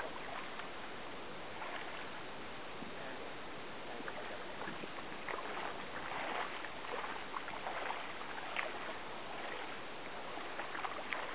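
Shallow pond water lapping and sloshing right at the microphone: a steady wash with irregular small splashes.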